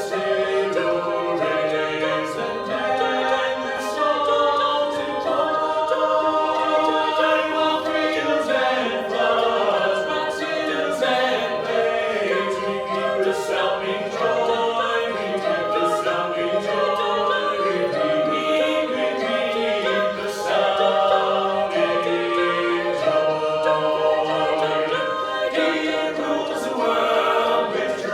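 An a cappella vocal ensemble singing a holiday song in close harmony, several voices together without instruments, steady throughout.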